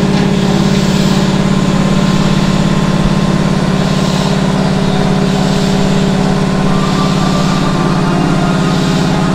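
Air compressor under a Keihan electric train standing at the platform, running steadily: a loud, low, fast-pulsing drone with steady higher tones over it.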